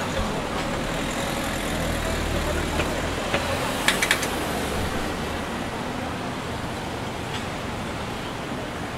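City street traffic: steady road noise, with a low engine rumble from a passing vehicle through the first half. A quick cluster of sharp clicks about four seconds in.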